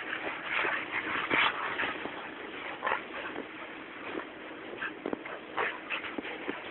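Dog sounds in short, irregular bursts, loudest about a second and a half in.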